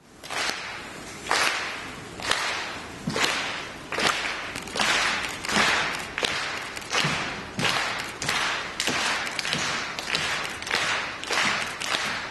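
Theatre audience clapping together in rhythm, sharp claps ringing in the hall, starting about one a second and speeding up to about two a second.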